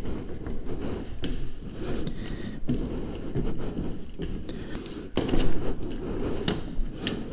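Footsteps climbing an indoor stairway, with scuffing and rubbing on the microphone, then a door being pushed open with a sharp click near the end.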